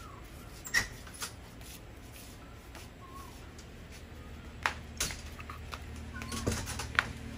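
A few sharp clicks and taps: one pair about a second in, two more around five seconds in and one near the end. Short faint chirps sound now and then, and a low rumble builds over the last second or so.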